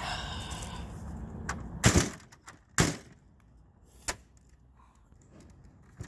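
Thin plastic printer parts being bent by hand: a creak in the first second, then sharp cracks or knocks about two, three and four seconds in.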